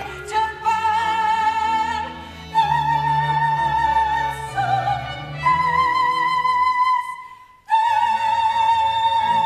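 A singer's high voice holding long notes with vibrato over instrumental accompaniment, stepping up to a higher note midway and, after a brief break, holding a final high note.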